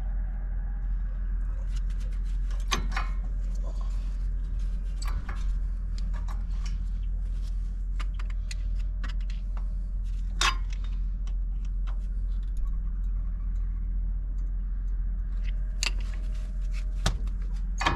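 Scattered metallic clinks and knocks as a truck's brake caliper and hand tools are handled, the loudest about ten seconds in and two more near the end, over a steady low hum.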